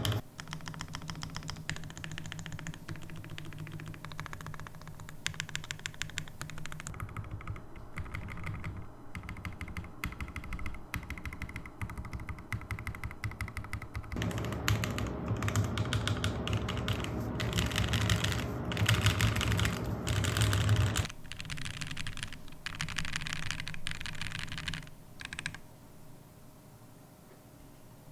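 Custom mechanical keyboard being typed on in a fast, steady run of keystrokes. It has Nebula switches on an FR4 plate in a full aluminium case, DCX keycaps and Durock V2 screw-in stabilisers, with no foam inside. The typing thins out to a few scattered keystrokes near the end.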